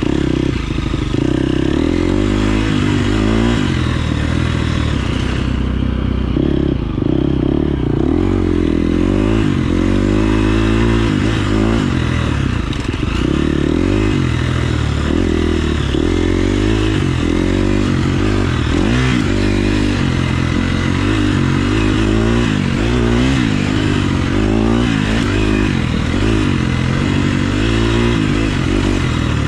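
KTM 350 SX-F's single-cylinder four-stroke engine on a motocross ride, its note climbing and dropping again and again as the throttle is opened and shut through the track's sections.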